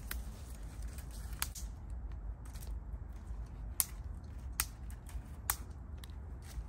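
Thin dry twigs snapping: a handful of sharp single cracks, roughly a second apart, over a low steady rumble.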